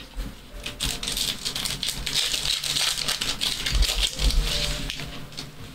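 2024 Topps Cosmic Chrome trading cards being flipped and slid over one another by hand in quick succession: a dense, rapid rattle of light clicks and rustles.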